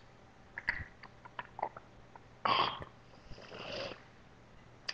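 A person making short breathy hissing noises with the mouth: a loud one about halfway through and a softer, longer one just after, with a few faint clicks before them.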